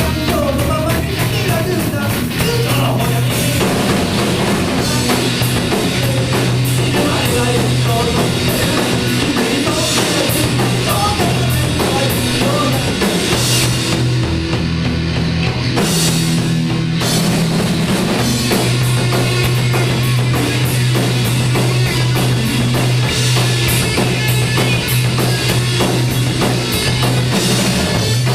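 Rock band playing an instrumental passage: drum kit with electric guitar and bass, the cymbals dropping out for a moment about halfway through.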